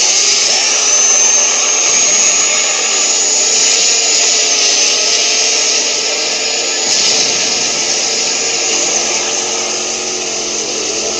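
Chainsaw sound effect: a two-stroke chainsaw engine running hard, with a high whine that climbs in pitch about a second in and then holds.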